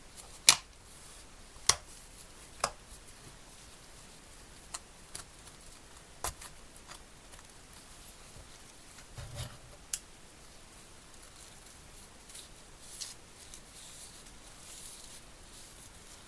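Hard small objects being handled at a workbench: a few sharp clicks and taps several seconds apart, one low thud, then softer scraping and rustling.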